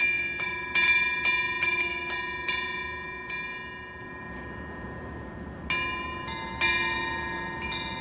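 Korean temple wind bell (pungyeong), a small metal bell hung from the eaves, struck by its wind-swung clapper at uneven intervals. A quick run of about eight rings comes in the first three seconds, then a pause, then four more near the end, each ringing on with several clear tones.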